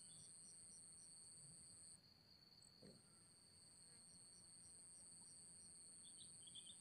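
Faint insect chorus: a steady high-pitched trilling at two pitches, the higher one breaking off about two seconds in and resuming shortly after, with strings of quicker chirps at about three a second.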